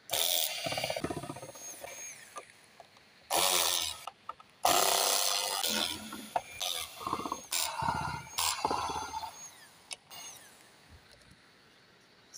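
Corded electric screwdriver whirring in repeated short bursts as it backs out the screws holding the lens of an LED street light.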